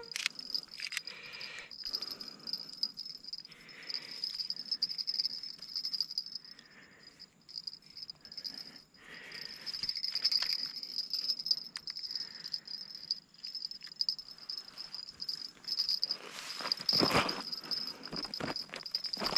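Insects calling outdoors at night, a steady high-pitched trill that pulses slightly and carries on throughout. Over it come intermittent faint rustling and scuffing, with a louder stretch of scuffling a little after three-quarters of the way through.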